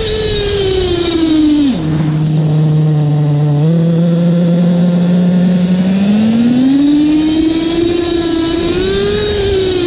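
Two-stroke petrol engine of a Reely Rex X 1:5 RC buggy, heard from a camera mounted on the car. It runs at high revs, drops sharply to a low steady note a couple of seconds in as the throttle is let off, then revs back up from about six seconds in.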